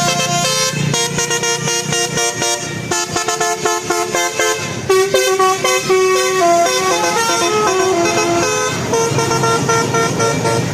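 Bus telolet horn, a multi-tone musical horn playing a quick tune of short stepped notes, over the low rumble of the bus's engine.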